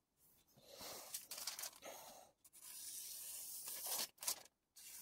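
Freshly sharpened Kai Shun chef knife slicing through a sheet of printed flyer paper, a dry rasping hiss with paper rustling, in two long stretches with a short break between. This is a paper-cutting test of the edge after the burr has been removed on the 1000-grit stone.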